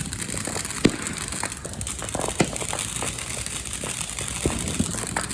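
Fireworks crackling: a dense, irregular run of small crackles and pops, with a few sharper pops standing out, about one, two and a half, and four and a half seconds in.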